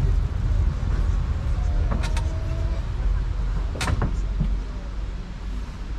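Steady low rumble of a tourist road train running along a city street, with a few sharp clicks or knocks about two seconds in and again near four seconds.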